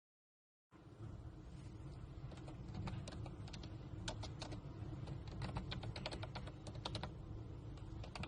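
Typing on a MOFII wireless vintage-style keyboard: a quick, irregular run of key clicks over a steady low hum, starting abruptly just under a second in.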